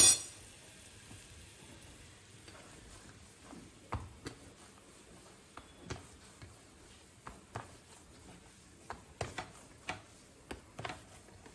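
A sharp metal clink of steel tongs against the iron tawa at the very start. Then soft, scattered taps and knocks follow as hands knead millet-flour dough in a steel plate.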